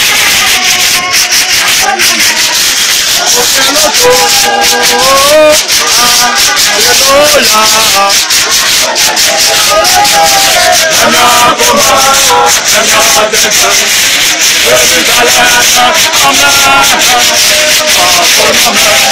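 Loud group singing over a steady rattle of shakers.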